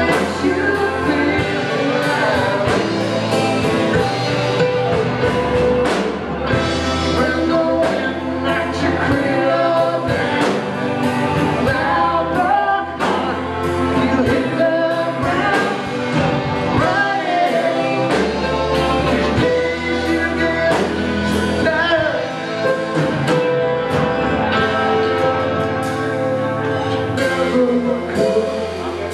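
A live band playing a song: sung vocals over electric guitar, mandolin, a drum kit with a steady beat, and keyboard.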